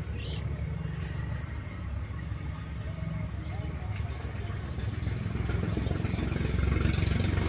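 Low, steady rumble of a running vehicle engine, growing louder toward the end, with faint voices in the background.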